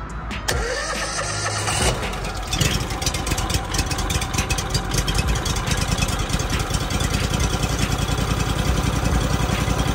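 Pressure washer's large gasoline engine being started: it turns over briefly, catches about two and a half seconds in, then runs steadily at idle to warm up.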